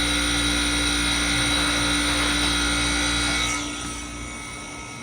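Manitowoc ice machine running, a loud steady machine hum with several whining tones. About three and a half seconds in, much of the sound winds down and drops away, leaving a quieter hum.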